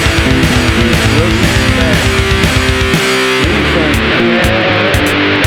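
Instrumental break of a rock song: strummed electric guitar chords over bass and drums, with a few lead notes sliding in pitch. The cymbal wash drops away about two-thirds of the way through.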